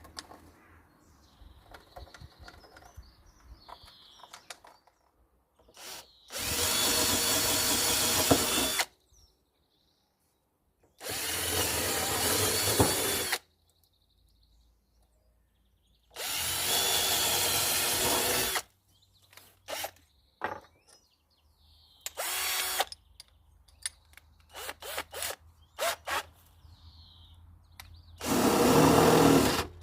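Power drill running in four bursts of about two to three seconds each, drilling into the workbench to fit a bench vise, with small clicks and knocks of handling in between.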